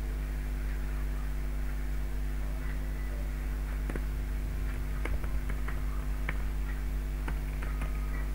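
Steady electrical mains hum, with a few faint computer keyboard key clicks scattered through the second half as code is typed.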